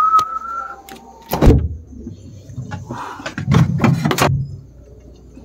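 A short high squeak, then a loud knock and, a couple of seconds later, a spell of knocks and rattling as a refrigerator door is pulled open and jostled.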